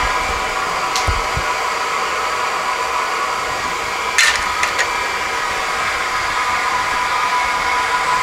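Steady hissing roar of a neon-bending gas-air burner heating glass tubing, with a light click about a second in and a sharper clink about four seconds in.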